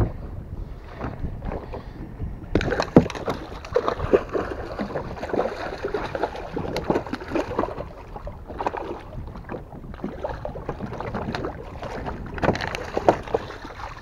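Wind buffeting the microphone over water sloshing against a boat, with irregular splashes and knocks as a hooked fish thrashes at the surface beside the hull and is lifted out.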